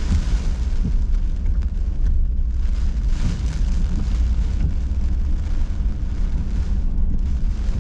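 Car driving through heavy hurricane rain and flooded road, heard from inside the cabin: a steady low rumble of the car with a hiss of rain and water spray that swells and eases several times.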